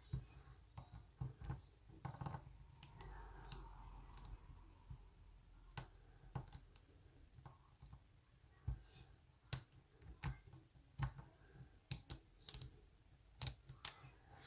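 Faint, irregular metallic clicks and ticks of a lock pick and pry-bar tension tool working the pins of a BiLock oval padlock, coming every second or so with a few sharper ones in the second half.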